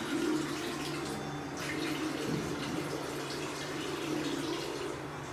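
A water tap running steadily into a sink in a small tiled bathroom.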